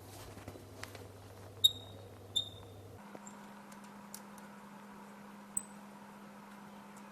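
Small metal screws and a hand tool clinking during disassembly of an e-bike torque sensor plate: two sharp, ringing metal clinks a little under a second apart, then a few faint ticks and one more light clink, over a low electrical hum that shifts higher about three seconds in.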